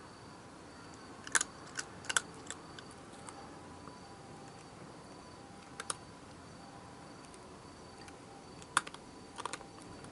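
Night insects chirping steadily in the background, broken by a few scattered sharp clicks that come in small clusters: several about a second and a half in, one near six seconds, and a few more near the end.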